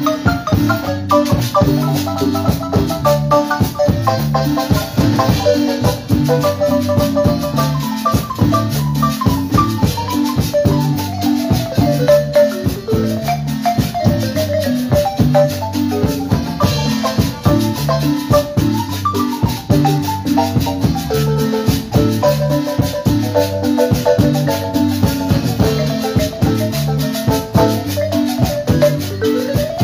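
Marimba orchestra playing a cumbia: a fast marimba melody over electric bass and drum kit, with a metal güiro scraping the beat. A quick rising run near the end.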